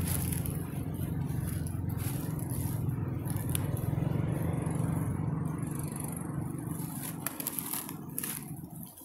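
A low, steady motor-like hum with scattered dry crackles and scrapes over it; the hum fades away near the end.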